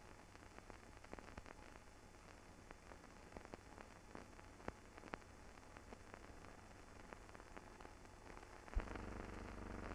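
Faint hiss with scattered crackles and clicks, the surface noise of an old film transfer with no recorded sound. Near the end a sharp click is followed by a louder, steady low hum.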